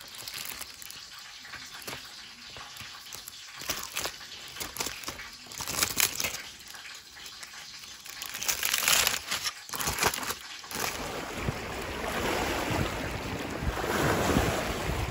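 Aluminium foil crinkling and crackling around a broiled fish as a fork works into it, in scattered crisp clicks. About ten seconds in it gives way abruptly to a steady rush of wind and lapping water at a rocky lakeshore.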